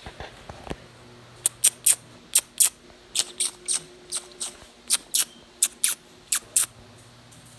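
A dachshund's claws clicking on a tile floor as it walks: about twenty short, sharp ticks in an uneven rhythm of three or four a second, starting about a second and a half in and stopping shortly before the end.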